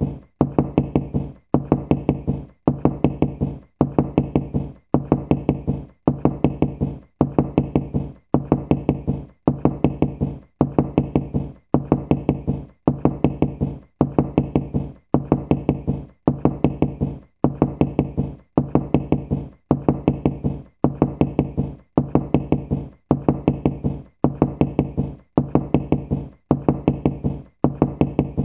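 Knocking: quick runs of several sharp knocks, one run roughly every second, repeating evenly with short silences between.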